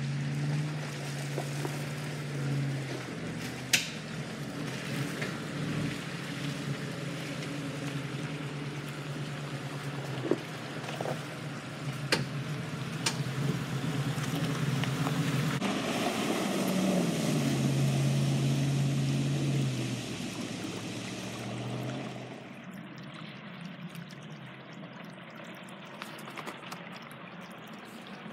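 Ford F-150 pickup engine running at low speed as the truck crawls over a rutted, muddy trail, its pitch stepping and rising with the throttle, with a few sharp knocks from the tyres and suspension over rocks. About three quarters of the way in the sound drops to a quieter, duller wash, with the truck splashing through puddles.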